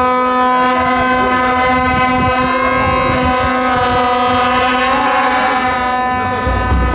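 A horn sounding one long, steady note for about seven seconds, cutting off near the end. Wind buffets the microphone as it stops.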